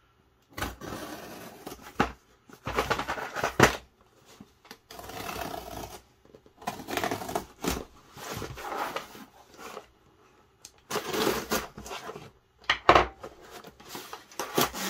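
Packing tape on a cardboard mailer box being slit with a craft knife and torn, the cardboard scraping and rustling as the box is turned over and opened. The scratchy bursts come and go irregularly, with a few sharp knocks.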